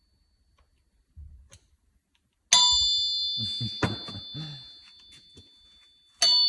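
A steel engine crankshaft is struck with a metal tool. It gives a sharp hit and a clear high ring that dies away over a few seconds, and it is struck and rings again near the end. This is a ring test, listening for a crack.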